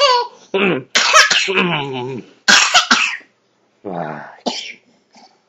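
Toddler gagging and coughing in about six harsh, strained bursts with short gaps between, a gag set off by being tickled on the foot.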